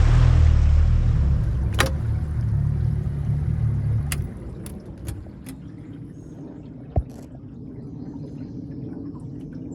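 Boat motor running with a low rumble, cut off about four seconds in, followed by a few light clicks and a single knock about seven seconds in.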